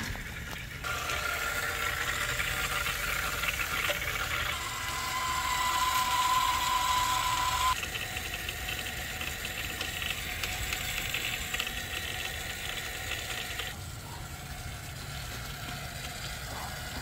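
Water rushing through a water softener's control valve and drain line as it flushes during a regeneration cycle. The hiss changes character several times, and a steady high tone sounds for about three seconds in the middle.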